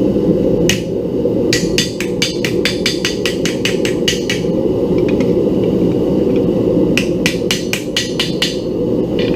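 Blacksmith's hammer striking metal: a single blow, then a quick run of about fifteen strikes at around five a second, a pause, then another run of about nine. Under it runs the steady roar of the forge burner.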